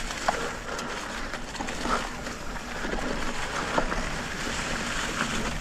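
Mountain bike rolling along a dry dirt trail: a steady rushing noise of tyres and passing air, with scattered small clicks and rattles from the bike.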